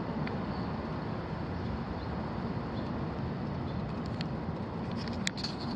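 Steady outdoor background rumble, with a few light clicks or taps about five seconds in.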